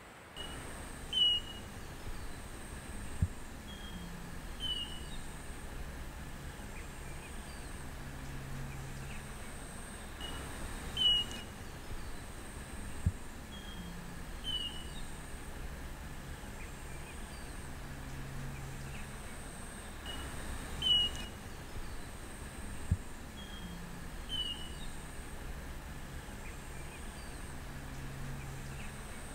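Outdoor ambience of steady hiss and low hum with a few short bird chirps and single clicks. The whole pattern repeats exactly about every ten seconds, like a looped ambience track.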